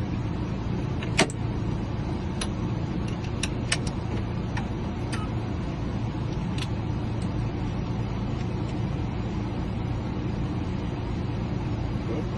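Steady low hum of a running motor, with a few sharp metallic clicks in the first half.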